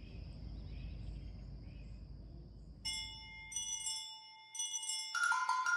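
A faint low rumble, then from about three seconds in a run of ringing chime notes struck one after another, opening into intro music.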